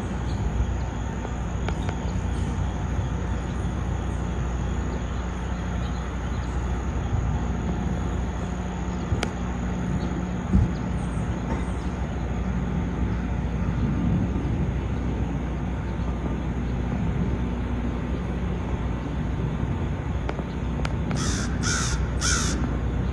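A bird calling three short, harsh times in quick succession near the end, over a steady low rumble, with a single knock about halfway through.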